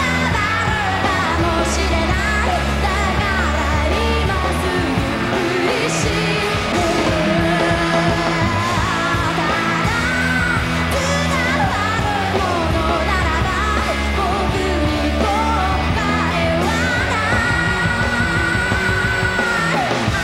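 A live rock band playing, with a woman singing the lead vocal over bass, drums and guitars.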